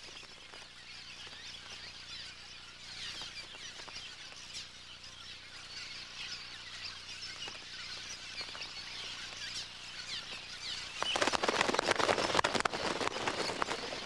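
Cliff swallow colony chattering: many quick, high chirps overlapping without pause. About eleven seconds in it swells into a louder flurry of calls and wing noise as the flock takes to the air.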